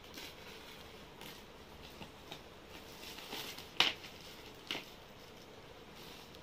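Clear plastic wrapping rustling and crinkling as it is cut with scissors and pulled off a plastic tray stand, with scattered light taps and two sharper plastic clacks just before and just after four seconds in.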